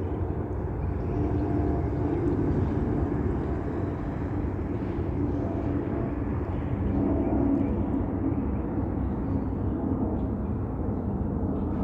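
Airbus A300F4-622R freighter's twin Pratt & Whitney PW4158 turbofans at climb thrust after takeoff: a steady low rumble with a faint droning tone in it.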